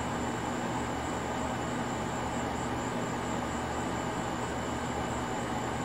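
Steady outdoor night ambience: a constant even hiss with a low hum underneath and a thin, high, slightly wavering tone on top, unchanging throughout. No distinct sound from the feeding rats stands out.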